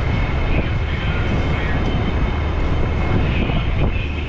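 Fire truck's diesel engine running steadily: a constant low rumble under an even rushing noise, with a thin steady whine above it.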